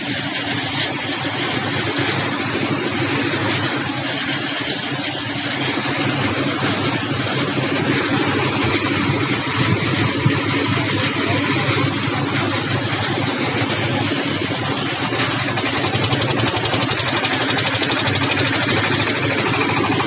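Concrete mixer's engine running steadily while the machine mixes concrete.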